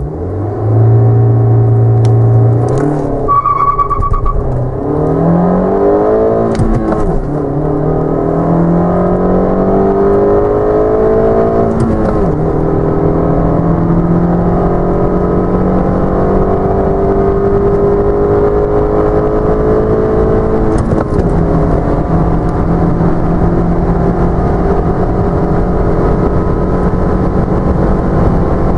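Suzuki Kizashi's 2.4-litre four-cylinder engine at full throttle, heard from inside the cabin: revs held at the launch, then the engine note rises steadily through each gear and drops at each of three manual upshifts, each gear climbing more slowly than the last.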